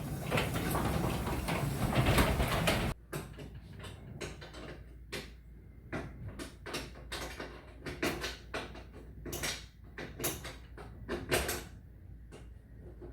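Garage door moving along its track, freshly lubricated with WD-40 and with its bolts tightened, running smoothly for about three seconds before stopping suddenly. After that come scattered short clicks and knocks.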